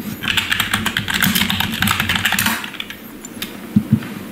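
Fast typing on a computer keyboard: a dense run of key clicks for about two and a half seconds, then a few scattered clicks. Near the end come two quick low thumps.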